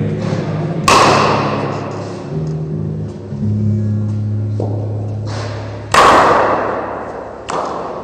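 Cricket bat striking the ball in an indoor net: two loud, sharp cracks about five seconds apart, each ringing on in a large hall, with softer knocks of the ball in between and near the end.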